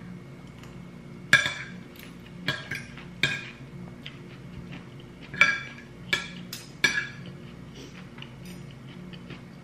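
Metal spoon and fork clinking and scraping against a ceramic plate while eating noodles in curry: several sharp clinks with a short ring, most of them in the first seven seconds.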